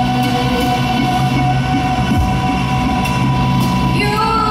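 Live band music with electric guitar and steadily held notes, between sung lines; a woman's singing voice comes back in near the end.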